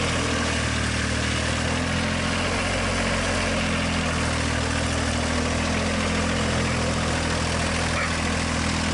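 Compact tractor engine running steadily at an even speed as the tractor carries a round hay bale across the field.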